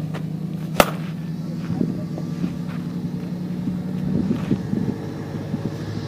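A softball bat hitting a pitched softball: one sharp crack of contact about a second in, over a steady low hum.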